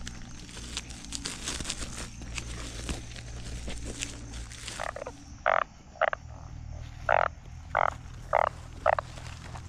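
Plastic bag rustling as it is handled. About five seconds in, a frog calls in a run of six or seven short, loud croaks.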